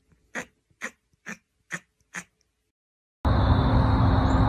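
A cat lying on a person's chest makes a run of short, sharp cough-like sounds, evenly spaced at about two a second, stopping a little over two seconds in. About three seconds in, a cut brings in a loud, steady hiss with a low hum.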